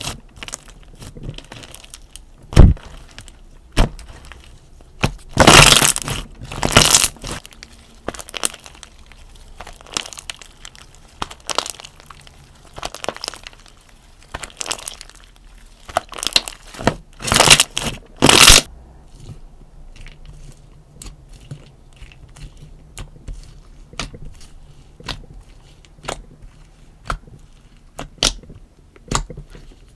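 Hands squeezing and poking a dessert-themed slime: crunchy crackling and sharp clicking pops, with two longer crunching squeezes. The squeezes come about a third of the way in and about halfway through, and the clicks grow sparser and quieter after that.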